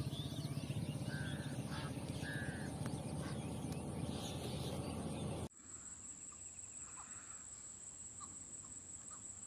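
Birds calling at a lakeside: two short calls, about a second in and again a second later, over a steady low rumble. After a sudden cut midway, it goes quieter, with a thin high whine and faint short chirps.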